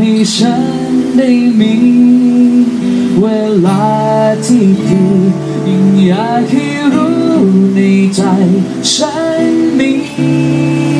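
A man singing a melody into a microphone while strumming an acoustic guitar.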